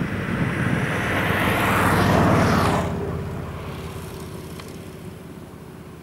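An engine passing by: it swells to its loudest about two seconds in, then fades away, leaving a low drone.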